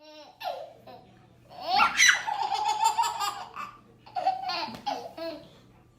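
A baby laughing hard in repeated bouts of high-pitched belly laughter, the longest run about two seconds in and another shorter one a little before the end.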